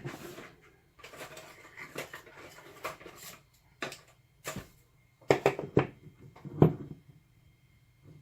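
Metal clicks and knocks, about seven sharp ones, with a stretch of scraping early on, as a 4 mm Allen key is fitted and worked against a very tight Allen screw in a heavy padlock body.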